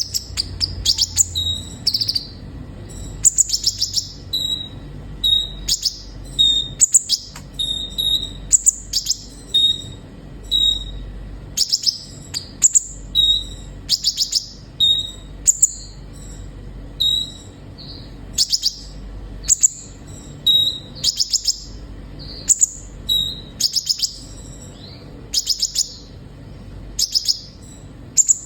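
Olive-backed sunbird (kolibri ninja) singing: short bursts of sharp, high-pitched chirps and rapid trills, repeated roughly once a second.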